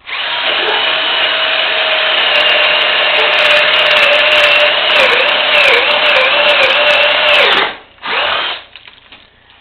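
Electric drill boring into a section of dead ash limb: a steady motor whine that sags and wavers in pitch for a couple of seconds as the bit bites under load, stops after about eight seconds, then a brief second burst.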